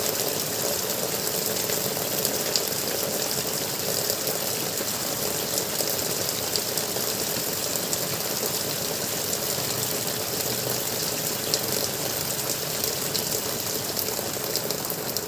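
Water gurgling and gushing steadily.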